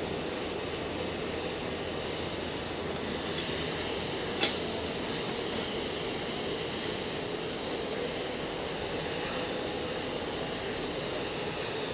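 Oxy-acetylene cutting torch hissing steadily as it cuts through steel pipe, with one sharp click about four and a half seconds in.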